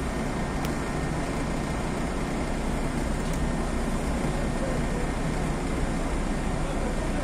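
Steady engine and road noise inside the passenger cabin of a Tezeller TezAuto LF1200 city bus, heavy in the low end and unchanging throughout.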